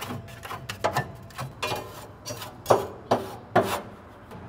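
A hand scraper scraping and knocking caked ash and debris loose from the steel floor of a Yoder YS640 pellet grill's cook chamber: a run of short scraping strokes and knocks, the loudest three between about two and a half and three and a half seconds in.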